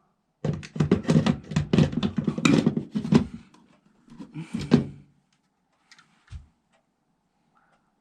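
Plastic smoke alarm being worked onto its mounting plate by hand: dense rubbing and clicking for the first few seconds, another short burst, then a soft thud about six seconds in.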